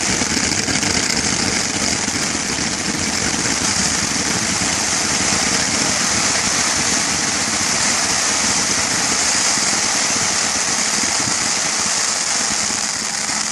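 Consumer firework 'Neon Tracer Wall' firing: a loud, continuous dense hiss with no separate bangs.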